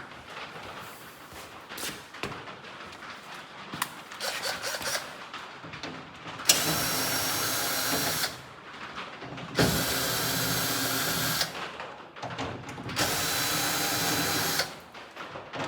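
Power drill running in three steady bursts of about two seconds each, after a few seconds of light clicks and rattles of tools being handled.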